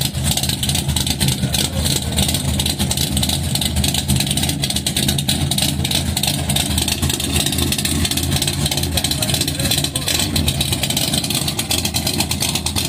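A 1954 Chevy panel wagon's 383 stroker small-block V8 with a big cam, running with a choppy, uneven "blap blap" lope from its exhaust. Near the end the van pulls away from the curb.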